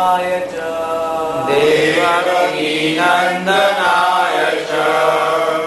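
A man's solo voice chanting a devotional mantra, holding long melodic notes that glide from one pitch to the next.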